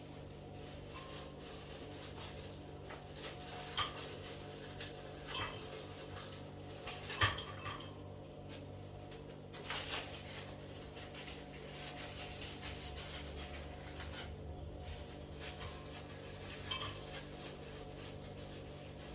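Cutlery and dishes clinking and knocking now and then during food preparation, a handful of sharp separate clicks over a faint steady low hum.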